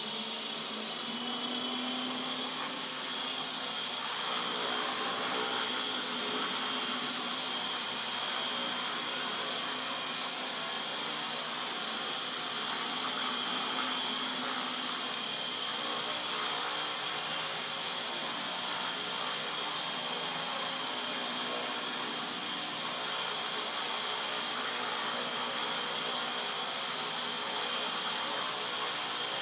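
Align T-Rex 450 SE electric RC helicopter: a high motor whine that rises in pitch over the first two or three seconds, then holds steady as the model hovers.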